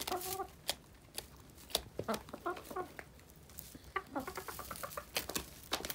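Hens clucking in short groups of notes: near the start, about two seconds in, and a quicker run of notes around four seconds in. Throughout, sharp clicks of beaks pecking feed from a plastic tub.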